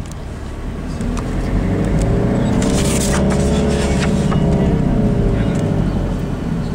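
Engine and road noise heard from inside a moving car, the engine note rising and then easing off through the middle. A brief rushing hiss comes about three seconds in, with a few light clicks and knocks.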